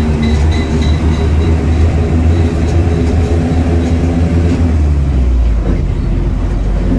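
Mitsubishi bus diesel engine running under way, heard from inside the cabin as a loud, steady low drone. A light regular ticking is heard over it in the first second or so.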